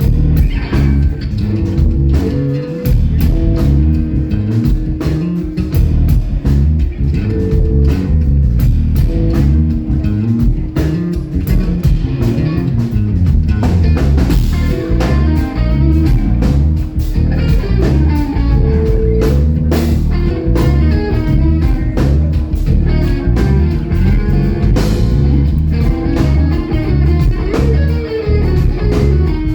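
A live rock band playing: guitar over a drum kit keeping a steady beat, with a busy low end.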